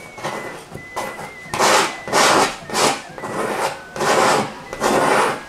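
Bristle paintbrush scrubbing oil paint onto a stretched canvas: a series of rough rubbing strokes, about two a second.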